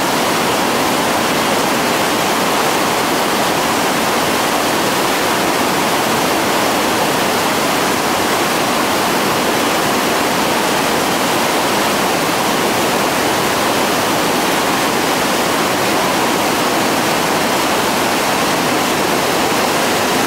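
Whitewater rapids rushing: a loud, steady, even noise of churning water with no breaks.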